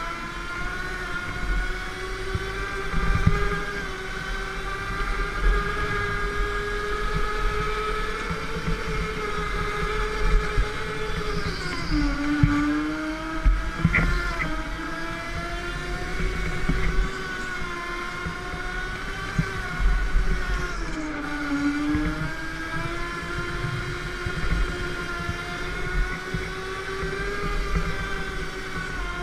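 Go-kart motor heard from on board, a steady whine whose pitch dips twice, about twelve seconds in and again near twenty-two seconds, as the kart slows and then climbs back as it speeds up, over a low rumble with small knocks from the chassis.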